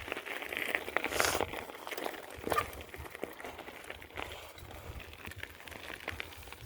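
Bicycle in motion: irregular clicking and rattling from the bike as it rides over an uneven surface, with a short hissing rush about a second in.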